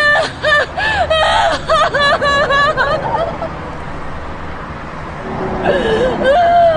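A woman crying hard in short, high-pitched sobbing wails, which break off for a couple of seconds of steady traffic hum before a long, falling wail near the end.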